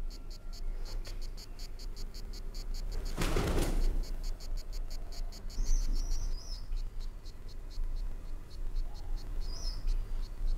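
Cricket chirping steadily in evenly spaced high chirps, with a short rush of noise about three seconds in.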